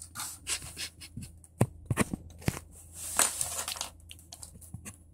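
Plastic LEGO bricks and a minifigure clicking and rattling as they are handled, with a few sharp clicks in the middle and some soft rustling.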